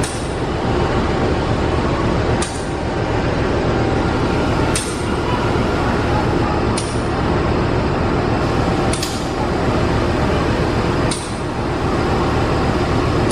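CC 201 diesel-electric locomotive's engine running steadily, with a short sharp click about every two seconds.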